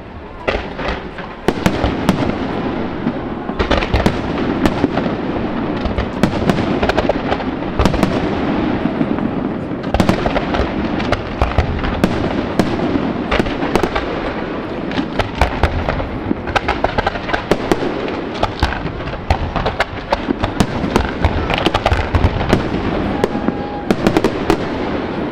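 Fireworks display: aerial shells bursting in quick succession with crackling between the bangs. It gets denser and louder about a second and a half in and keeps up a steady barrage of many reports.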